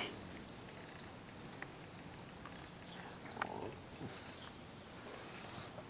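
Faint noises from English bulldog puppies, with one louder breathy sound about three and a half seconds in, a few faint high chirps and small clicks.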